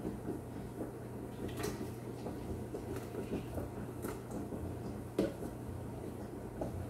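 Milk poured from a measuring jug into a plastic blender jar, a faint pour over a low steady hum, with a few light knocks, the sharpest about five seconds in.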